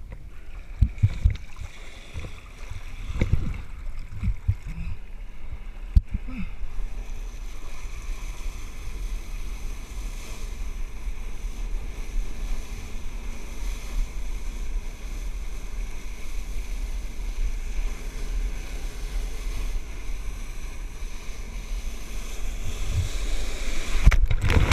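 Flyboard water jets rushing as the rider lifts off and hovers above the sea. Under the rush runs a steady drone, with wind on the microphone. A few knocks and splashes come in the first seconds, and the spray gets louder near the end.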